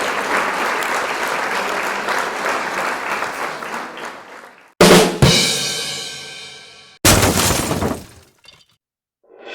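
Applause fading out, then two separate sudden crashes, each ringing down over a second or two, like a cymbal crash or something breaking.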